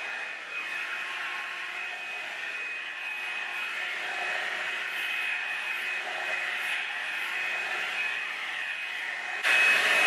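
Revlon One Step hot-air brush dryer running: a steady rush of blown air with a thin high motor whine, jumping suddenly louder near the end.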